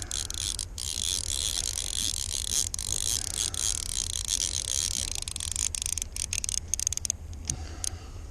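Fly reel's click-and-pawl drag ratcheting rapidly while a hooked bass pulls on the line. About six seconds in, the steady rattle breaks up into separate clicks.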